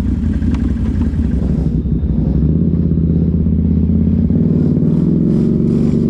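1000cc Can-Am off-road vehicle's engine running under way on a trail, the engine note picking up and getting a little louder about two and a half seconds in.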